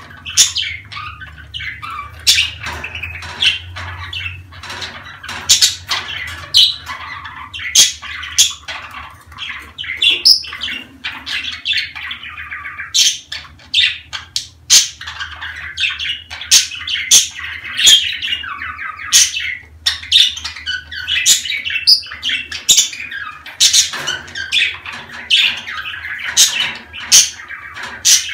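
Budgerigars chattering and warbling without a break, with many sharp chirps and squawks: the excited calls of budgies in the breeding season, during courtship and mating.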